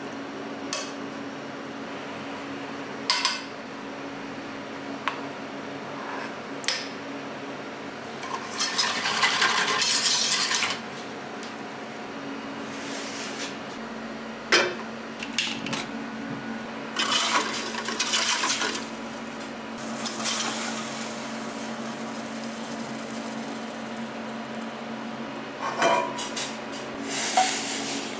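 Metal measuring ladle and small stainless-steel saucepan clinking and knocking as seasonings are measured into the pan, with the pan set down on a gas burner grate. There is a steady low hum underneath and a few short rustling stretches.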